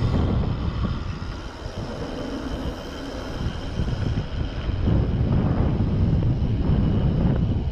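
Wind rushing over the camera microphone and bicycle tyres rolling on asphalt as a mountain bike rides down a paved road, getting louder about five seconds in.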